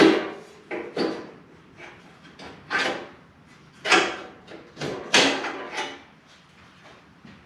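Harley-Davidson FLT's metal rear luggage rack clanking and scraping against the motorcycle frame as it is worked loose and pulled free: about five separate knocks a second or so apart, the loudest right at the start, then quieter handling near the end.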